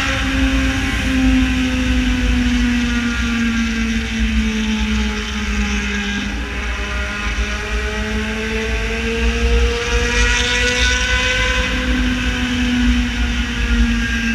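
Yamaha XJ6 Diversion's 600 cc inline-four through a full open exhaust, running steadily at cruising revs. Its pitch sags gently through the middle and climbs back toward the end, over a constant low rumble.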